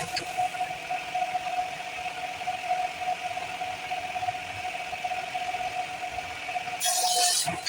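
A woodworking power tool's motor running with a steady whine, with a short burst of hissing about seven seconds in.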